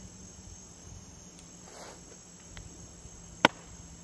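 Steady high-pitched insect chorus, over a low steady hum, with one sharp click or knock about three and a half seconds in.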